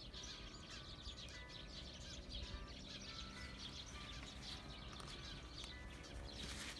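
Quiet outdoor ambience: a steady low rumble with faint bird chirps.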